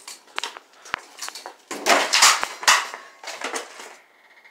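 Scooter crashing onto concrete as its rider falls: scattered knocks, then a loud metallic clatter and scrape about two seconds in.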